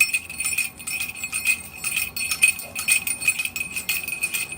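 Small bells jingling continuously, shaken in rapid, irregular strokes.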